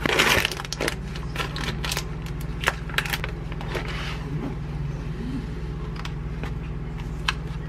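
Plastic wrapping crinkling and a plastic food container clicking and rattling as a packaged salad is unwrapped and its inner tray lifted out, loudest at the very start, with scattered sharp clicks after, over a steady low hum.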